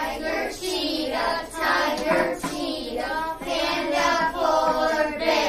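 A group of children chanting animal names together in rhythm, such as "tiger" and "panda", in a sing-song unison.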